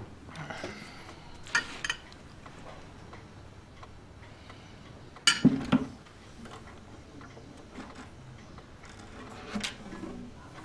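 A few light clinks and knocks of crockery on a table as a mug is set down and dishes are handled, with a louder clatter of short knocks about five seconds in, in a quiet room.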